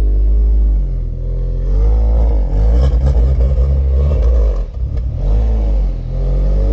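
Car engine revving up and down several times as it is driven through a manoeuvre, over a steady low rumble.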